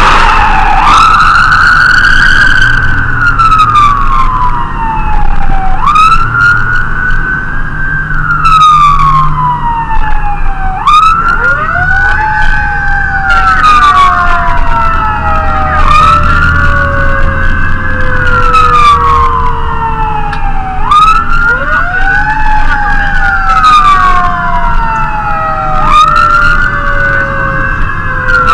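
Fire engine siren wailing, its pitch rising quickly and falling slowly about every five seconds. From about eleven seconds in, a second, lower siren tone twice winds up and then dies away slowly. A low engine drone runs underneath.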